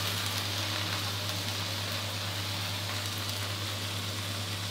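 Mussel pancake frying in shallow oil in a wok, a steady sizzle as its second side browns, over a low steady hum.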